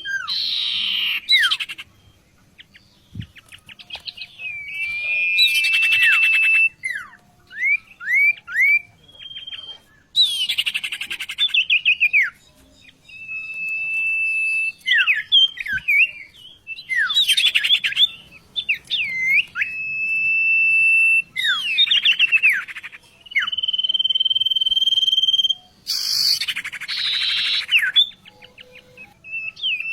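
A songbird singing a varied song in phrases with short pauses between them: long steady whistles, quick down-slurred notes, rapid trills and harsh buzzy bursts. The song is a masteran, a tutor recording played for caged songbirds to learn from.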